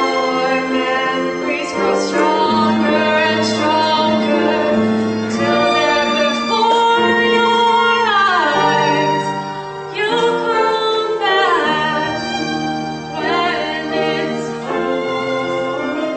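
Classical-style music: singing with held, wavering notes over bowed strings.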